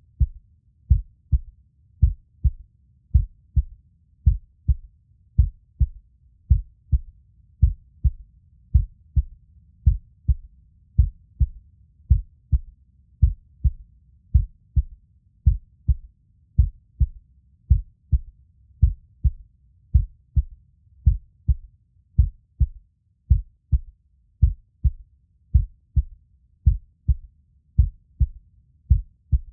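Heartbeat, low double thuds (lub-dub) repeating steadily about once a second, over a faint low rumble.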